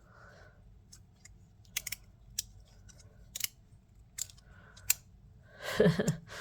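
Irregular sharp clicks and snaps of small fidget-toy parts and plates being handled and fitted together. A short vocal sound comes near the end.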